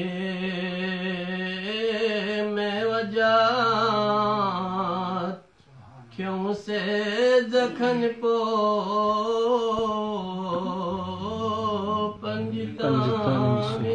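A man chanting a Balti qasida, a devotional poem, unaccompanied, in long drawn-out notes with wavering ornaments. The voice breaks off briefly about five seconds in, then resumes.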